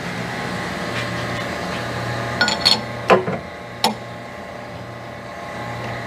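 Metal clinks and clanks from a lathe chuck being handled: a quick run of clinks about two and a half seconds in, a sharp clank with a short ring just after three seconds, and one more knock near four seconds, as the four-jaw chuck held in the three-jaw chuck is loosened with a chuck key. A steady low machine hum underneath.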